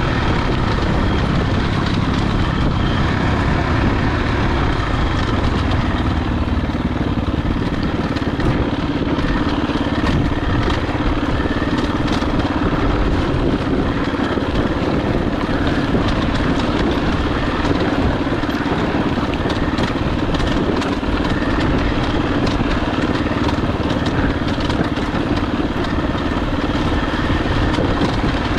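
Dirt bike engine running steadily under way on a rocky dirt trail.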